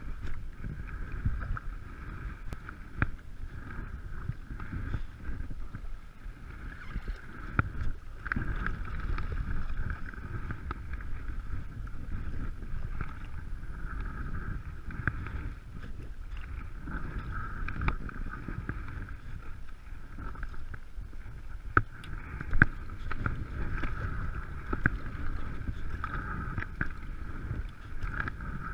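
Kayak paddle strokes: the blades dipping and pulling through calm water on alternate sides, with splashes and drips and scattered small ticks. Low wind rumble on the microphone runs underneath, and a sharp knock or splash stands out about two thirds of the way through.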